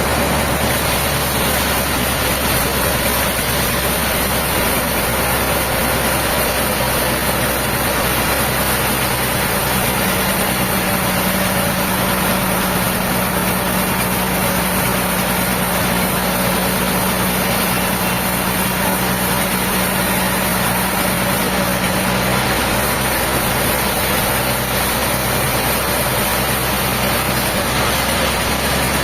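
Heavy engine running steadily at a constant speed. A steady low hum joins about ten seconds in and stops about twenty-two seconds in.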